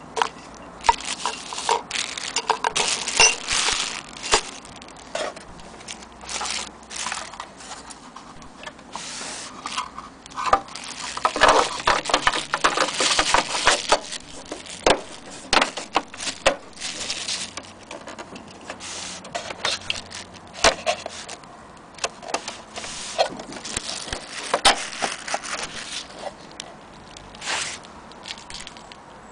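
Plastic bags and wrapping crinkling and rustling as they are handled, in an irregular run of sharp crackles.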